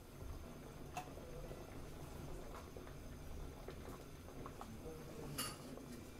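Light clicks and clinks of a spoon and a small dish against a small glass bowl as seasonings are added to soy sauce. There is a short click about a second in and a sharper, ringing clink about five seconds in.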